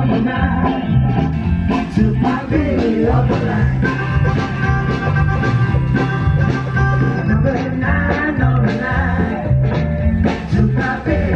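A live band playing a steady beat over a walking bass line, with drums and guitar.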